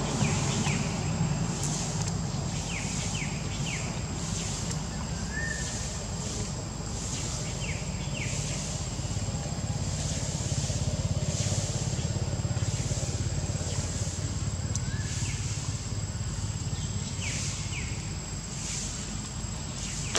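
Outdoor ambience: a steady low rumble under a steady high whine, with soft hissing pulses about once a second and a few faint short chirps.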